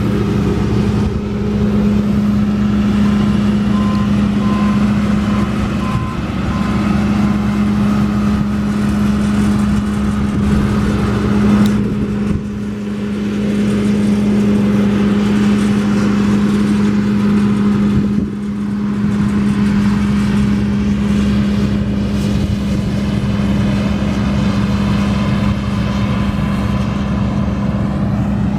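Combine harvester running steadily under load while harvesting corn, with a constant deep hum. A few seconds in comes a run of about five short, evenly spaced beeps.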